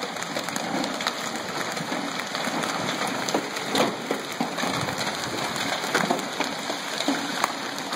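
Hail pelting down: a dense, steady clatter of hailstones striking the ground, with a few sharper single hits standing out, the clearest about four and six seconds in.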